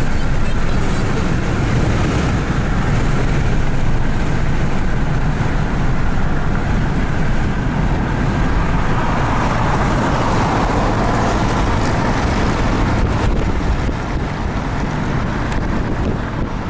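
Steady engine and tyre noise of a car driving at highway speed, heard from inside the cabin.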